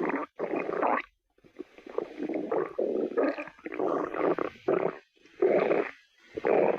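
A person's stomach growling, rumbling in a string of uneven bursts with short breaks between them.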